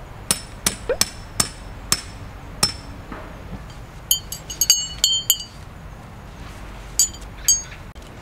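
Hard objects knocking sharply, about seven strikes in the first three seconds. A run of ringing metallic clinks follows about four to five and a half seconds in, and two more clinks come near the end.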